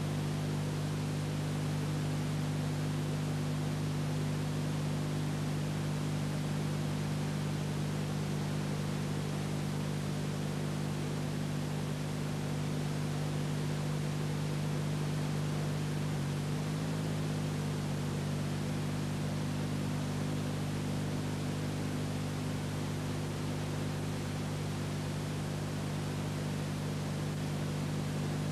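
Steady hiss with a low electrical hum underneath: the noise floor of an old film transfer, with no sound from the scene itself. The hum briefly wavers about two-thirds of the way through.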